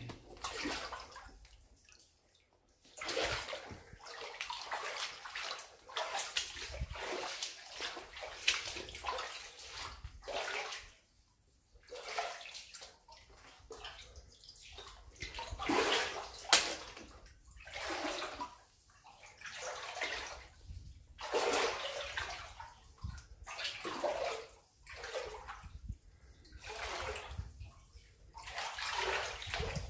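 Someone wading through shallow standing water on a mine tunnel floor, each step a slosh and splash, repeating about every one and a half seconds at a walking pace.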